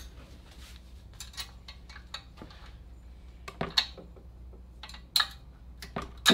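Small metal engine parts and tools clinking and tapping as they are handled: a scatter of short, sharp clicks, with a few louder clanks in the second half.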